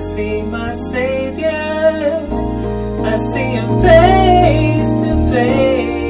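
Slow gospel song: a singer holding a wavering melody over instrumental accompaniment with long, sustained bass notes.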